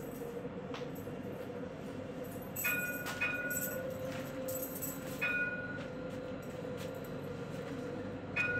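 Alstom Citadis tram running along its track with a steady hum. About four sharp metallic clinks each ring briefly, two of them close together near the middle.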